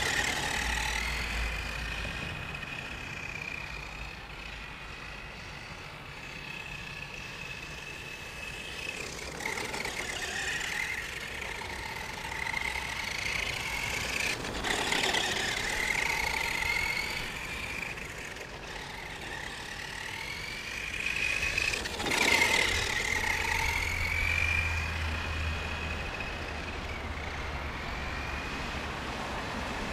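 Helion Dominus 10SC RC short-course truck's brushed electric motor and drivetrain whining, the pitch rising and falling again and again as the throttle is worked. There are a few louder noisy moments along the way, and a low rumble near the start and again later.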